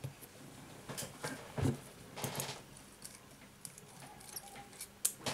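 Faint handling noises of fingers working a small micro-USB charging-port flex board on a cork mat: a few light taps and scrapes, the loudest about a second and a half in, with a brief rustle just after two seconds.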